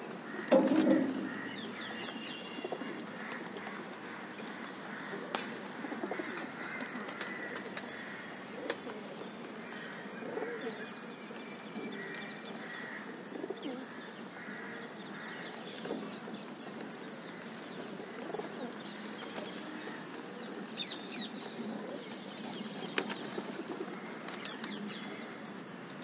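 Rock pigeons cooing in low, repeated calls as they feed, the loudest about a second in. Faint higher chirps from small birds and a few scattered sharp taps are mixed in.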